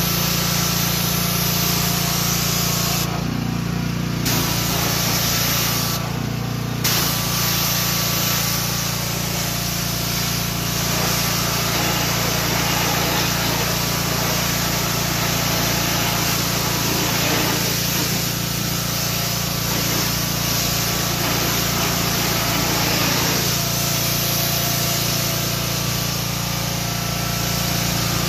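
Pressure washer running and spraying water onto a car's wheel and tyre: a steady motor hum under a hissing jet. The hiss drops out briefly twice in the first several seconds.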